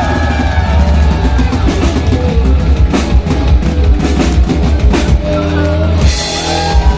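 Live rock band playing, the drum kit and bass loudest, with a heavy low end and steady drum hits.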